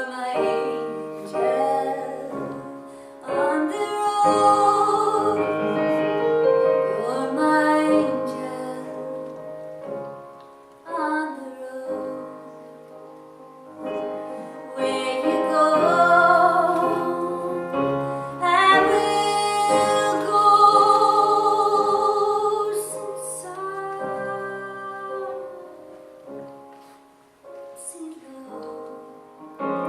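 A woman singing a song with piano accompaniment, her long held notes carrying a clear vibrato, with short breaks between phrases.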